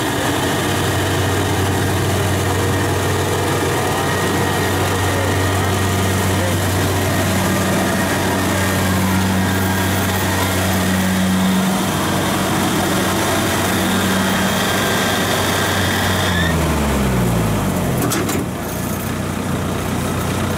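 Kubota DC-70 combine harvester's diesel engine and drives running steadily under load, with a steady high whine. About sixteen seconds in, the whine stops and the machinery winds down, falling to a lower idle.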